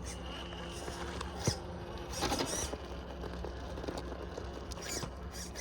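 Hobbywing Quicrun Fusion SE brushless motor and drivetrain of an Axial SCX10.3 early Bronco crawler running slowly with a steady low hum, holding one crawl speed up a rock obstacle on a fixed throttle with FOC control enabled. A few brief scrapes and clicks come through.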